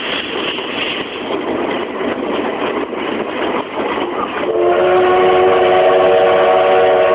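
Running noise of a moving train heard from inside a passenger carriage, then about four and a half seconds in a long, steady train whistle blast of several tones at once starts suddenly and holds, much louder than the running noise.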